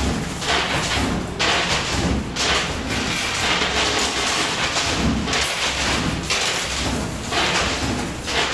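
Coin pusher machine running, with coins clattering and rattling on its metal playfield in a dense noise that swells and dips about once a second.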